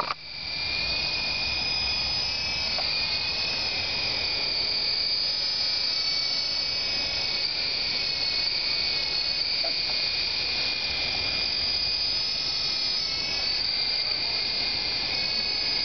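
Syma Apache 3-channel toy RC helicopter in flight: its small electric motors and coaxial rotors give a steady high whine that wavers slightly in pitch.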